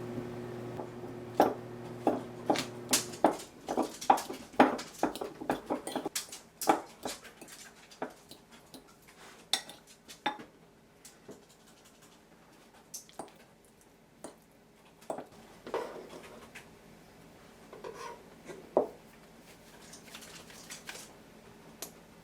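Utensils clinking and tapping against dishes and a plastic steamer in a quick run of sharp knocks, thinning out toward the end. Under the first few knocks a steady low electrical hum runs, then stops about three seconds in.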